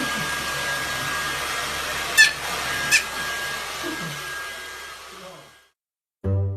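A steady blowing motor noise with a thin high whine, broken by two short, high squeaks about a second apart. It fades out, and string music with plucked bass starts just before the end.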